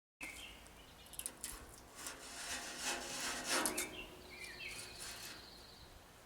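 Outdoor background with birds chirping and a short trill, over a steady hiss, broken by a few sharp knocks and a louder rustling stretch near the middle.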